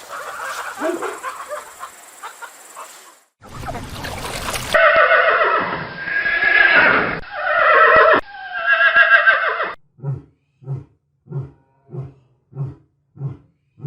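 Horse whinnying: several long, loud neighs whose pitch wavers and falls away. Before them come a few seconds of noisy sound, and after them a run of short, low pulses, about one and a half a second.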